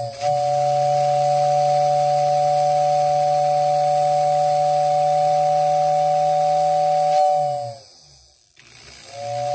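Postwar Lionel 2466WX tender whistle, running with the shell off: its electric motor drives the fan into the double-chamber whistle, giving a steady two-note whistle over a low motor hum. The blast holds for about seven and a half seconds, sags in pitch as the motor winds down, and a second blast starts near the end. This is the rebuilt whistle's first test, and it works.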